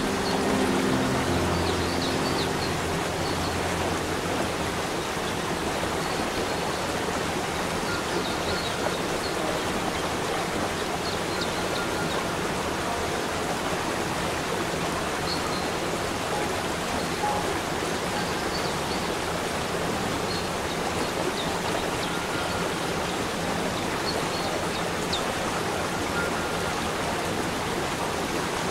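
Waterfall and rocky mountain creek rushing steadily, with faint high chirps now and then.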